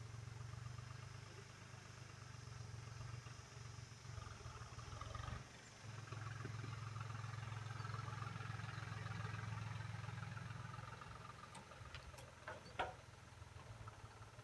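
Deutz-Fahr Agromaxx 4050E tractor's three-cylinder diesel engine running at a steady low note, cutting out briefly about five seconds in and fading near the end. A few sharp knocks come near the end.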